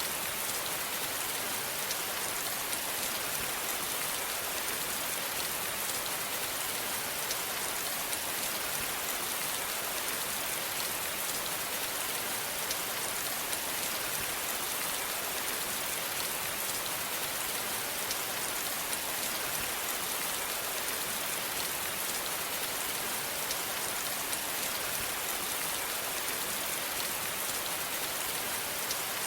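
Steady rain falling, an even hiss with fine patter of drops, heaviest in the high tones.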